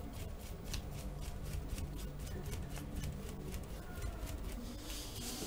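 Dry paintbrush bristles stroking across a frame's wet painted surface: a quick run of faint scratchy strokes, about five a second. The dry brush is lifting paint to draw a faux wood grain.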